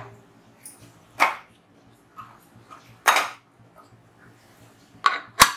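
A dog barks a few times, about two seconds apart. Just before the end there is one sharp click, as the whistle weight is set on the pressure cooker's vent.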